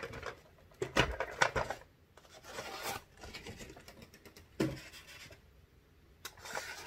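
Cardboard model box and its packaging being handled and opened: irregular scraping and rubbing with light knocks, and one sharper knock about four and a half seconds in.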